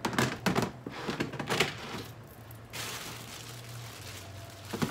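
Clear plastic storage bin and lid knocking and clacking in a quick run of sharp clicks. Then a longer rustle of crinkling plastic wrap as a plastic-wrapped toaster oven is lifted, with a few more knocks near the end.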